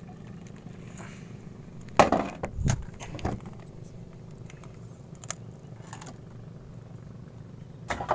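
Scattered knocks and clunks on a wooden boat's planks as fishing gear is handled, the loudest about two seconds in, over a steady low hum.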